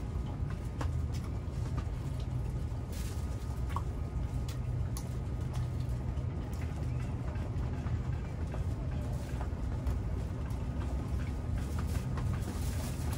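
A steady low rumble with scattered small clicks and taps as tacos are picked up and eaten from a foil tray.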